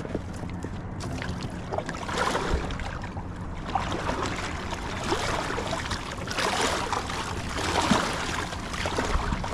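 Choppy seawater slapping and sloshing against a kayak hull and its outrigger float, swelling louder in surges every second or two.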